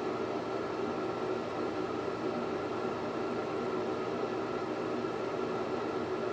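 Glassblowing torch burning a big flame, a steady even rushing noise, while a hollow glass bulb is reheated in it.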